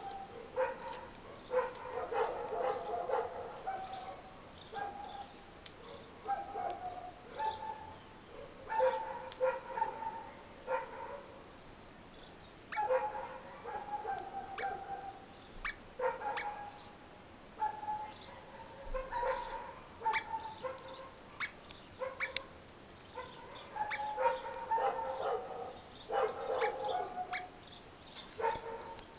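Eastern rosella calling: short pitched calls and chatter in irregular bursts, every second or two, each with a sharp onset.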